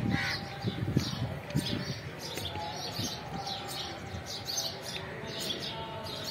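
Small birds chirping repeatedly in the open air, short high calls following one another throughout, with a few low thumps in the first two seconds.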